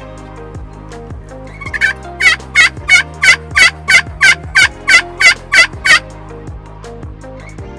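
Merriam's wild turkey calling: a run of about a dozen loud, evenly spaced notes, about three a second, starting about two seconds in and stopping about six seconds in.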